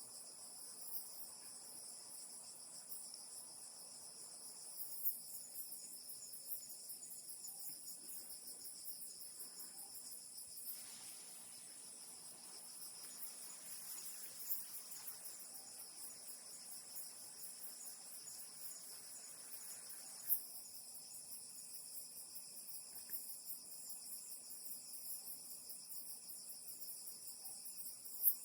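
Insects trilling steadily at several high pitches at once, with a rapid pulse. A soft hiss joins in from about eleven to twenty seconds in, and a few faint clicks stand out.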